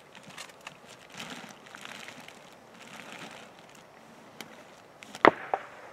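Faint rustling and handling noise, then one sharp, loud crack about five seconds in, followed a moment later by a smaller click.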